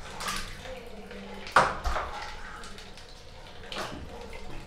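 Water pouring and dripping from a plastic packet into a plastic basin of water, with a sharp splash about one and a half seconds in and a smaller one near the end.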